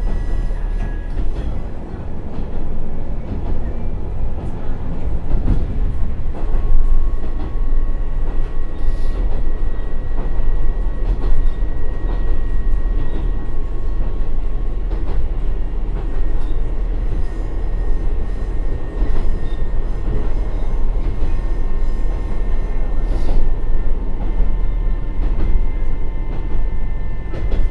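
Akechi 100 diesel railcar, with its Niigata DMF13HZ engine and TACN-22-1601 transmission, running downhill at about 40 km/h with the converter brake (retarder) held on, heard from inside the car. There is a steady rumble with a thin, steady high whine, and now and then a click from the wheels on the rail.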